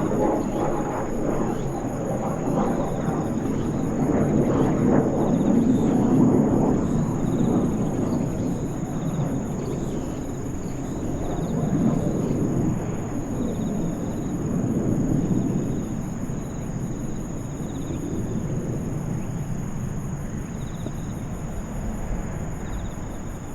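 Kawasaki T-4 jet trainer's twin turbofan engines heard in flight overhead: a broad rumble that swells and fades several times as the jet passes, with a faint falling whine at the start.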